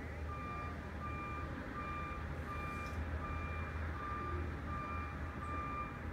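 A distant electronic beeper sounding short, evenly spaced beeps of one pitch, about four every three seconds, over a steady low rumble.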